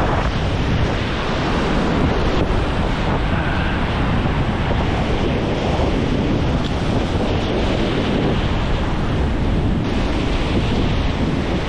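Ocean surf breaking and washing up a sandy beach, with steady wind rumble buffeting the microphone.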